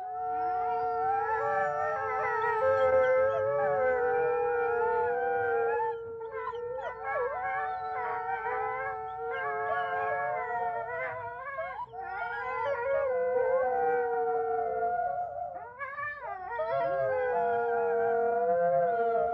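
A pack of wolves howling together: several long howls at different pitches overlap, some held steady and others wavering and gliding up and down. The chorus dips briefly a few times as voices break off and rejoin.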